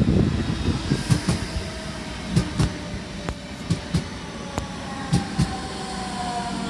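DB Class 425 electric multiple unit running on the track: wheels clacking over rail joints, often in quick pairs, over a steady rumble. A whine falls slowly in pitch through the second half.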